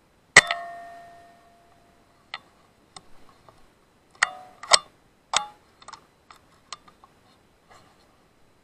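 A PCP air rifle fires once, a sharp crack with a short ring that fades over about a second. It is followed by a run of quicker metallic clicks and knocks, two of them nearly as loud as the shot.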